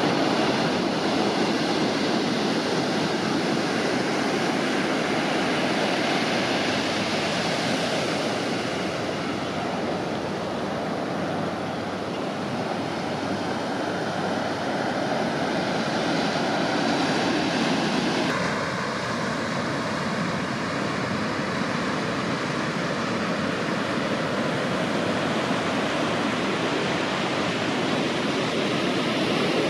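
Ocean surf breaking and washing up the sand: a steady rushing of water that swells and eases slowly.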